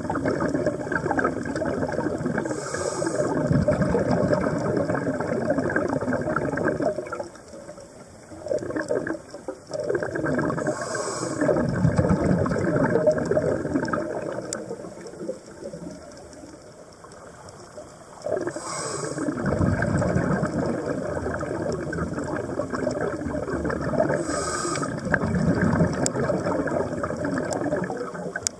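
Scuba diver breathing through a regulator underwater: three long bubbling rushes of exhaled air with quieter pauses between, and brief hisses of the regulator.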